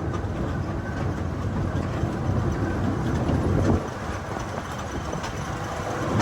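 Zoo train running along its track, heard from aboard a passenger car: a steady low rumble with light scattered clicks, easing off slightly about four seconds in.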